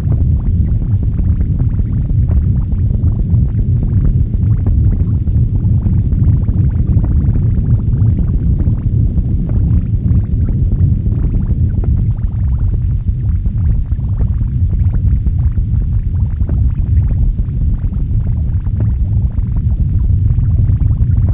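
Experimental noise music: a loud, dense low rumble with fine crackling grit over it, with no beat or clear pitch.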